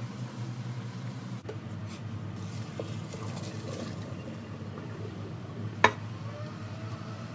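Cooked spaghetti and its water poured from a pot into a plastic colander in a kitchen sink, with one sharp knock near the end.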